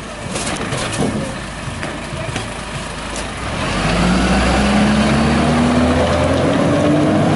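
Side-loader rubbish truck: a few knocks and rattles from the hopper and body, then about three and a half seconds in the truck pulls away, its drive note rising steadily in pitch as it gathers speed.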